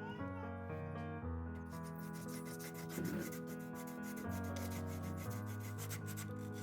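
Sandpaper rubbing back and forth over hardened two-part metal paste filler, in quick regular strokes that start about two seconds in, over background music.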